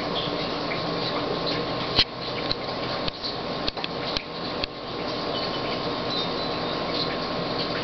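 Steady mechanical hum and hiss, with a few sharp clicks between about two and five seconds in, the first the loudest.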